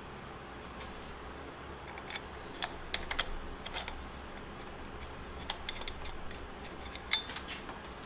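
Light metal clicks and clinks of hardware being handled and tightened on the pivot bracket of a steel monitor mounting arm. They come in scattered groups about two to four seconds in and again near the end, over a steady low hum.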